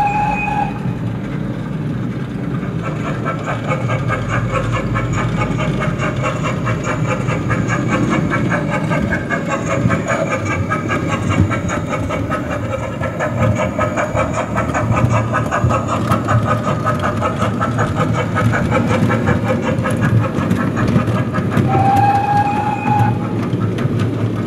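Digital sound decoder of a Minerva O gauge GWR 57XX 0-6-0PT pannier tank model, playing continuous steam locomotive running sounds through the model's speaker, mixed with the wheels rolling on the track. A short steam whistle sounds right at the start and again about 22 seconds in.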